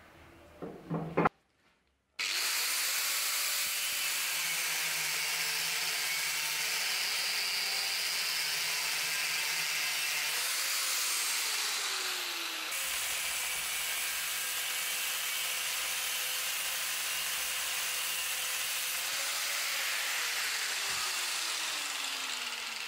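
A couple of sharp metal clacks, then a homemade bench grinder driven by a washing-machine motor running steadily.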